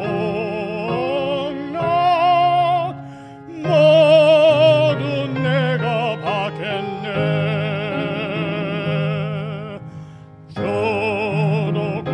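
A man's solo voice singing a hymn with wide vibrato over instrumental accompaniment that holds steady low notes. He pauses briefly between phrases about three seconds in and again near the end.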